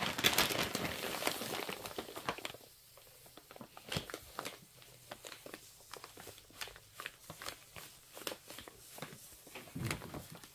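Plastic bag of silica gel rustling as it is picked up and handled, then a long run of light crinkles and ticks as the bag is squeezed and tipped to pour the gel.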